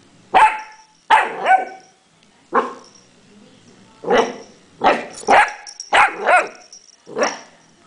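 A puppy barking: about ten short, sharp barks in uneven bunches, some coming in quick pairs.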